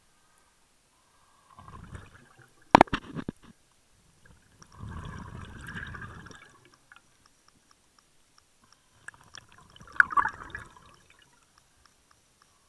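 Scuba diver breathing through a regulator underwater: exhaled bubbles rush out in bursts about every four seconds. A few sharp clicks come about three seconds in.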